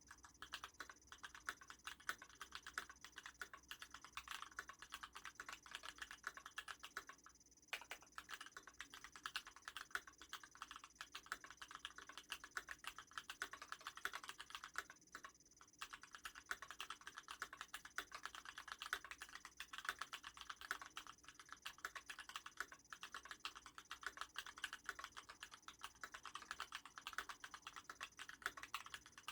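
Typing on an FX2 White mechanical keyboard fitted with Gateron Yellow linear switches, their sliders lubed with Tribosys 3204 and fitted with 65 g springs: a fast, dense run of soft keystroke clacks, broken by brief pauses about a quarter and about half of the way through.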